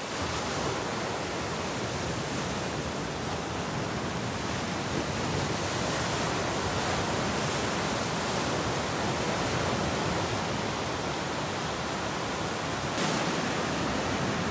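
Ocean surf breaking and washing over a rocky shoreline: a steady rushing hiss.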